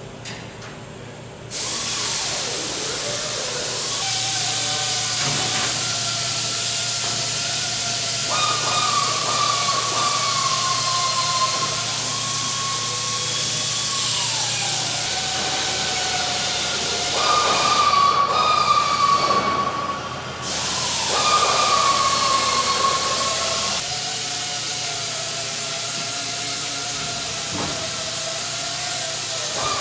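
Steady loud hiss of air-powered parts-cleaning equipment working on corroded aircraft wing parts, with a wavering whine. It starts about a second and a half in and grows louder twice past the middle.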